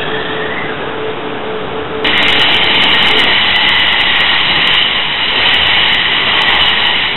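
Eight-car Class 450 Desiro electric multiple unit running past, with a steady rush of wheels on the rails and a steady high whine from the train. It gets louder about two seconds in.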